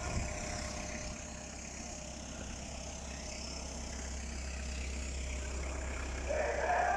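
A steady low rumble of outdoor background noise, with music coming back in near the end.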